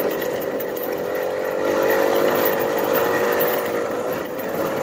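1997 Kinetic moped's 49 cc two-stroke engine running steadily under way. Its pitch sags slightly and comes back up near the end.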